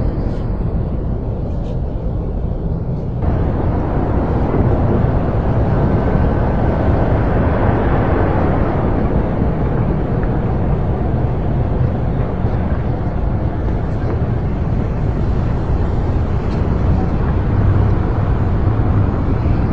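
Steady city ambience, mostly a low rumble of distant traffic, that suddenly grows fuller and louder about three seconds in.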